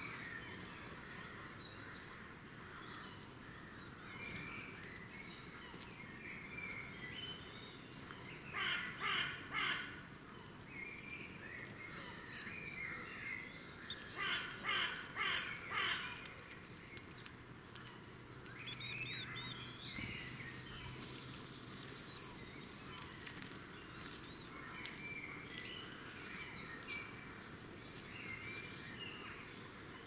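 Woodland birdsong: several small songbirds sing high, twittering phrases. About nine and fifteen seconds in come two louder bursts of rapidly repeated lower calls.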